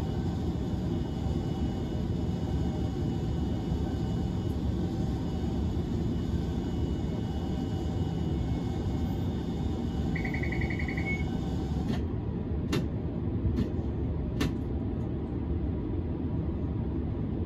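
Hiroshima Electric Railway 1000 series Green mover LEX low-floor tram running between stops, heard from inside the car as a steady rumble. A short burst of rapid high beeping comes about ten seconds in, and a few sharp clicks follow shortly after.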